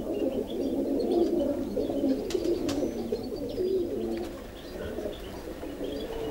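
Domestic pigeons cooing, many coos overlapping into a continuous wavering murmur, with a couple of sharp clicks about two and a half seconds in.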